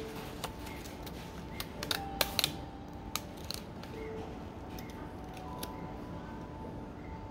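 Decorative-edge craft scissors snipping through card, a series of sharp clicks with the loudest cluster about two seconds in, over a steady background hiss.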